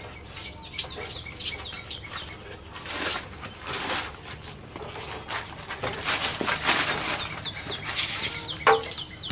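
Small birds chirping repeatedly in short, high, falling notes, mixed with intermittent rubbing and scuffing as a rubber windshield molding is pressed by hand onto a metal frame.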